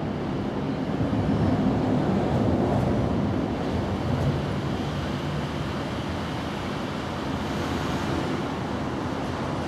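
Steady low rumbling background noise, louder between about one and four seconds in.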